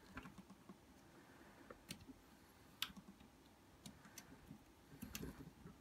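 A few faint, scattered small clicks of a flat ribbon cable and its plastic connector being handled and fitted on the pickup board of a boombox's CD player, over near silence.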